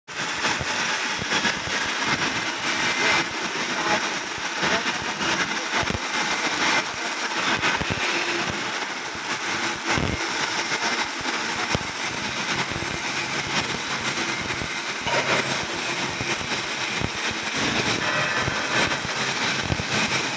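Electric arc welding overhead: a steady, dense crackle and sizzle from the arc with many fine pops.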